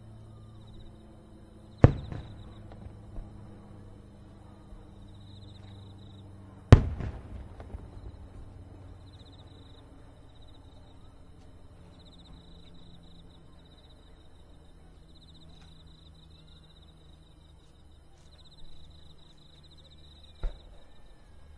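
Sato Enka's aerial firework shells bursting: two loud bangs about five seconds apart, each trailing off in an echoing rumble, then fainter pops and a smaller bang near the end. Insects chirp in pulses in the background.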